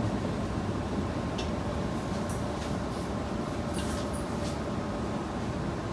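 Cabin noise of a Tokyo Metro 9000 series subway car running: a steady low rumble of wheels and running gear with a faint steady hum, and a few brief high clicks and squeaks around the middle.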